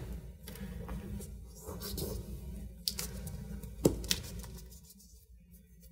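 Fingers pressing and rubbing a leaf onto a sheet of paper on a tabletop: faint scuffing and rustling of skin on leaf and paper, with one sharp tap about four seconds in.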